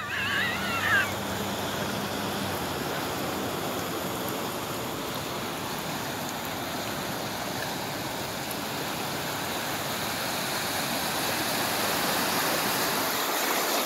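Floodwater rushing and washing across a flooded street and parking lot, a steady sound of moving water that grows a little louder near the end.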